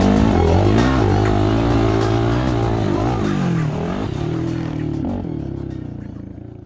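Quad's engine revving up and down, with music over it, everything fading out near the end.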